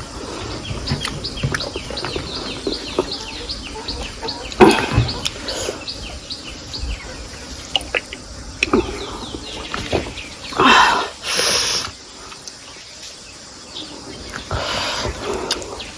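Small birds chirping in a rapid run of short, falling notes, about four or five a second, through the first half. A sudden loud noise comes about a third of the way in, and two louder bursts follow about two-thirds through.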